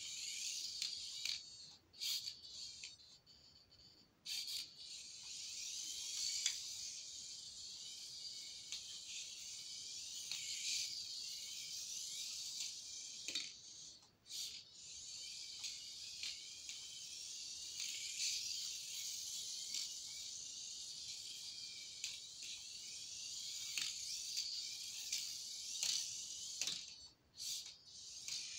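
High-pitched whirr of a Turbo Racing C75 1:76 micro RC car's tiny electric motor and gears as it laps. The whirr drops away briefly a few times, where the car slows.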